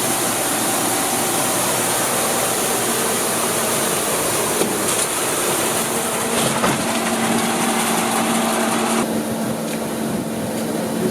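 Bin washing machine running, a steady mechanical drone with a strong hiss; about nine seconds in the high hiss drops away, leaving a steady hum.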